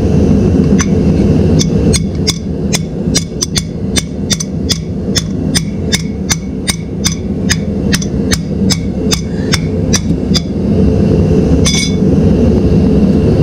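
Hammer striking the metal back cover of a Dana 80 rear differential, about three sharp taps a second for roughly ten seconds, knocking the cover loose. A steady low rumble runs underneath.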